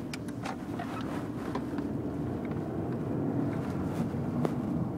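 Steady low rumble of a car heard from inside the cabin, engine and road noise, slowly growing a little louder, with a few faint clicks.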